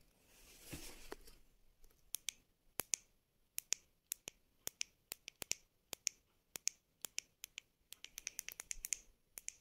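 Sharp, small plastic clicks, about two or three a second and coming faster near the end: the control buttons of an RGB LED ring light being pressed to step through its colours and modes. A short rustle of handling about a second in.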